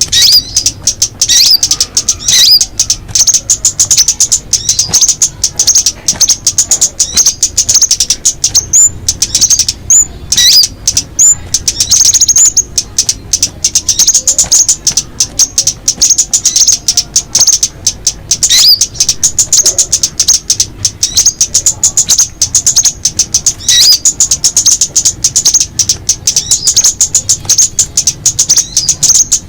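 Songbirds calling: a fast, unbroken chatter of high chirps, with short swooping calls now and then.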